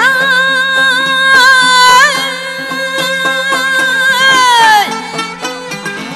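Uyghur folk song: a woman sings a long held "ey" with vibrato over rapidly plucked long-necked lutes. The note falls away about five seconds in, leaving the plucked strings playing on.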